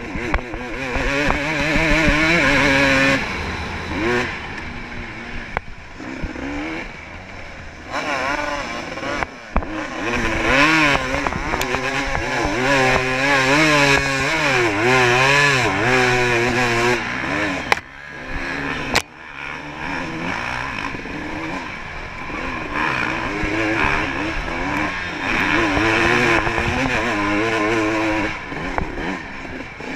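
Off-road dirt bike engine revving up and falling off over and over as the rider works the throttle on a rough trail, with brief cuts in the revs about a third of the way in and again past the middle.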